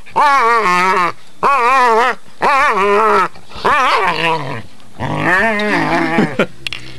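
Pit bull play-growling while wrestling: about five long, wavering vocal growls in a row, each about a second, with short breaks between.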